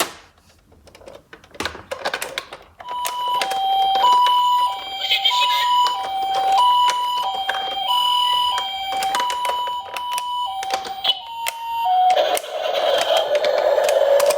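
Toy ambulance's Japanese-style two-tone 'pee-poh' siren sounding through a small speaker, a high and a low note alternating about once a second for some nine seconds. It is preceded by clicks and knocks, and gives way near the end to a steady rushing noise.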